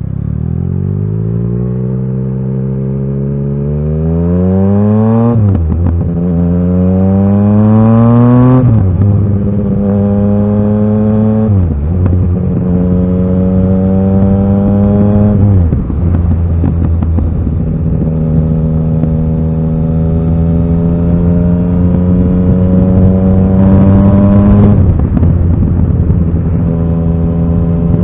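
Yamaha XSR900's inline three-cylinder engine pulling away and accelerating hard, its pitch climbing through each gear and dropping at five upshifts, about 5, 9, 12, 16 and 25 seconds in. The later gears are held longer, with a long slow rise before the last shift and then a steady cruise.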